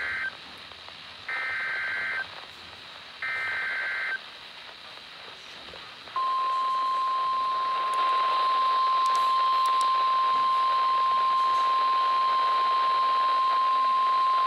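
NOAA Weather Radio alert coming through a Midland weather radio's speaker. First come the end of one and then two more short bursts of warbling SAME digital header tones, each under a second long. About six seconds in, the steady 1050 Hz warning alarm tone starts and holds. The sequence marks the start of an emergency broadcast for a tornado warning.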